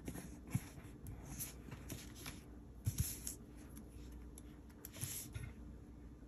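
Faint paper rustling and light taps as hands slide planner pages across a desk and handle a small paper sticker, with a few soft clicks.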